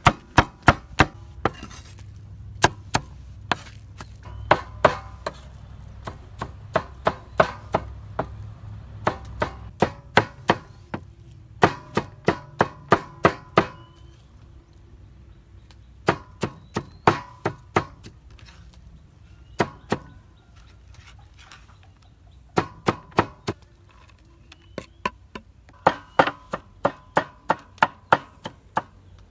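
Heavy cleaver mincing fermented fish on a round wooden chopping block: runs of quick, sharp chops, about three or four a second, with short pauses between the runs.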